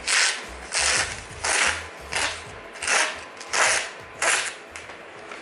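A sharpened kitchen knife slicing through a catalogue page in repeated strokes: seven short papery swishes about two-thirds of a second apart. It is a paper-cut test of the freshly sharpened edge.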